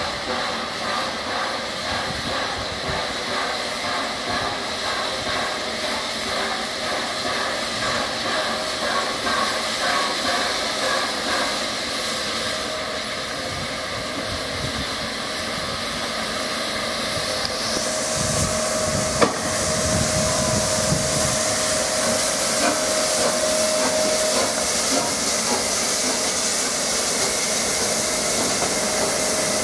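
Peppercorn A1 Pacific steam locomotive 60163 Tornado standing with steam hissing steadily. The hiss grows louder and brighter a little after halfway, with a single sharp click soon after.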